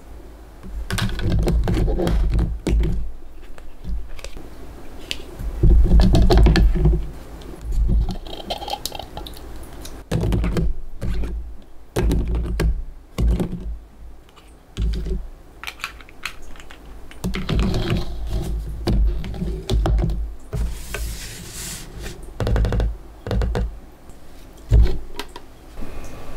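Kitchen handling sounds: irregular knocks, clicks and dull thuds of utensils and containers being set down and worked. A brief hiss comes about four-fifths of the way through.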